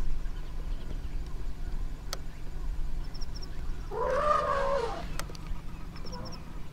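A single animal call, about a second long, rising then falling in pitch, around four seconds in.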